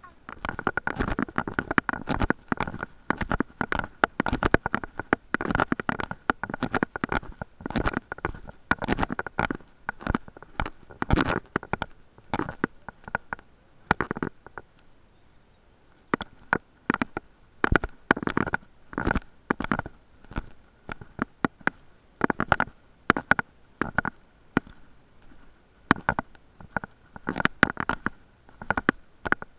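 Irregular crackling and rubbing noise on a handheld action camera's microphone, coming in uneven clusters with a few quieter gaps, over a faint steady high-pitched tone.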